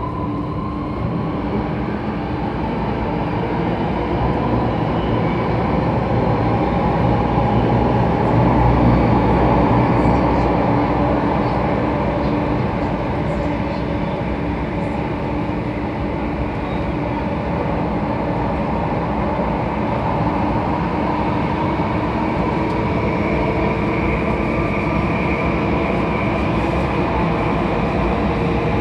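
Alstom Metropolitan C830C metro train in motion, heard from inside the carriage: a steady rumble of wheels on rail with the whine of the traction motors. It grows louder over the first several seconds, holds steady, and a new higher tone comes in near the end.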